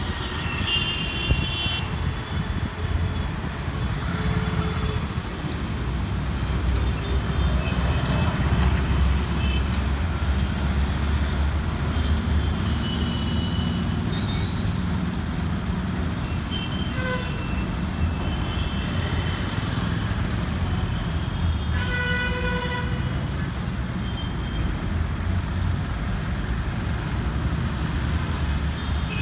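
Road traffic passing, a steady low rumble of engines and tyres, with vehicle horns honking now and then: short toots near the start and a louder horn lasting about a second around three-quarters of the way through.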